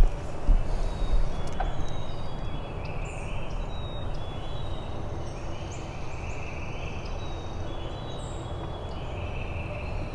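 Wild birds calling repeatedly outdoors over a steady low rumble of wind or handling noise, with two low thumps about half a second and a second in.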